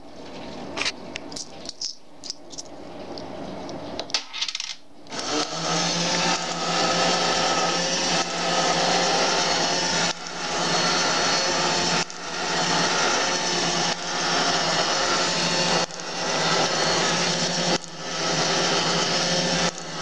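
A few light clicks, then about five seconds in a small electric motor starts up. It runs the paper-butterfly automaton with a steady hum that dips briefly about every two seconds.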